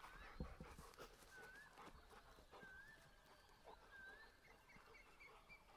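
Near silence in open country, with faint short whistled animal calls that rise and fall about once every second or so, then a few quicker, higher notes near the end, and a few soft clicks.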